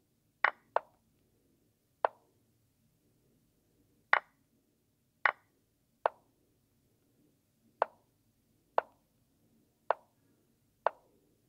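Online chess app move sounds: about ten short, sharp clicks, one for each move played. They come roughly a second apart, with two in quick succession near the start.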